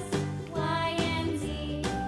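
Children's background music: a bright, tuneful melody of steady notes that change every fraction of a second.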